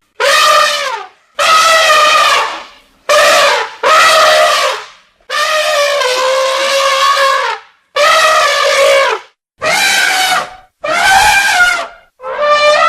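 An angry elephant trumpeting: about nine loud, brassy calls in quick succession, each a second or two long, the longest held steady in the middle.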